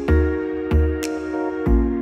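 Background music: a soft electronic track with held synth chords over a steady beat of deep bass thumps and crisp high percussion hits.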